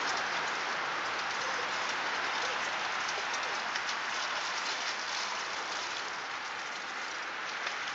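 Steady water splashing as a small child swims across a pool, kicking at the surface.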